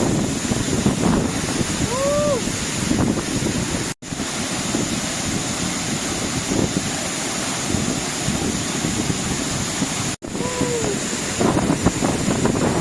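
Waterfall crashing down close by: a loud, steady rush of falling water, with wind and spray buffeting the microphone. The sound cuts out for an instant twice.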